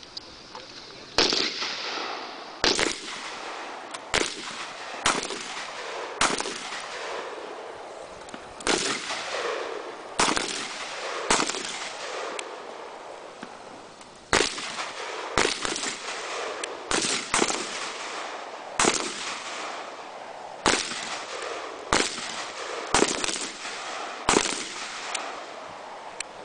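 Rifle fire: about twenty single shots, mostly a second or so apart and sometimes in quick pairs, each with a short echo, and with a pause of a few seconds near the middle.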